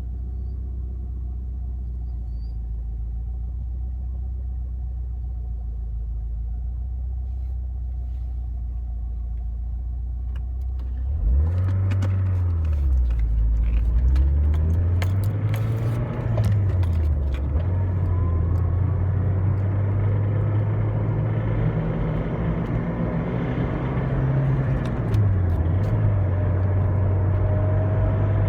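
Toyota 5S-FTE four-cylinder engine with a CT26 turbo, running steadily and then, about eleven seconds in, pulling under load. Its pitch climbs and drops back several times, with a ticking under load whose cause the owner has not found: valve clearances are in spec and no bearings are spun.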